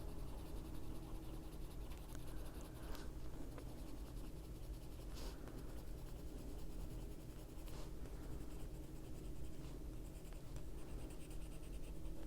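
Soft, continuous scratching of a Prismacolor white colored pencil stroking over paper, layering white over black to wash it out.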